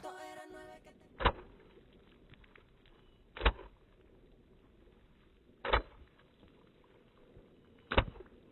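Four short, sharp stamps about two seconds apart: rubber boots striking the wet, thinly flooded salt crust. A music track fades out during the first second.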